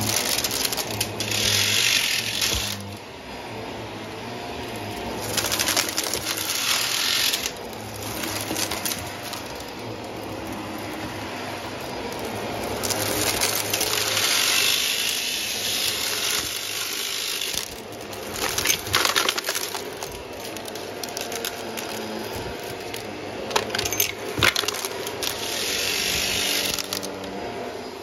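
Hoover upright vacuum cleaner running over carpet, its motor humming steadily. Several times it surges into a loud hiss as the brushbar and suction pick up scattered debris, with small hard bits rattling and clicking as they are sucked in.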